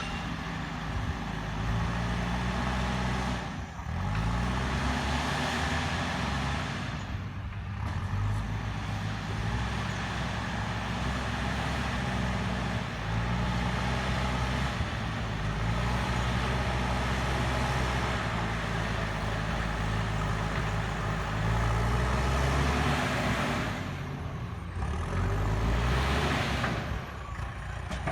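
JCB backhoe loader's diesel engine working under load, its revs rising and falling again and again, with a few brief lulls.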